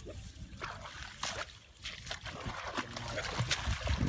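Water splashing and trickling as a cast net is worked and lifted through shallow pond water among weeds, in a series of irregular splashes and drips.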